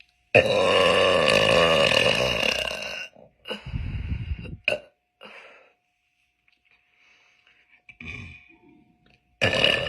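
A girl burping: one long, loud burp lasting nearly three seconds, then a shorter burp and a small one. Another long burp starts just before the end.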